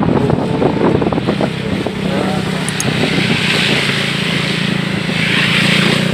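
Steady engine hum from a vehicle driving along a rain-soaked road, with wind buffeting the microphone in the first couple of seconds. Tyres hiss on the wet asphalt as oncoming traffic passes, about halfway through and again near the end.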